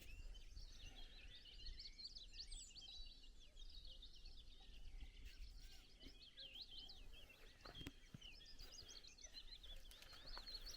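Faint chorus of songbirds: many quick chirps and trills overlapping without a break, over a low rumble.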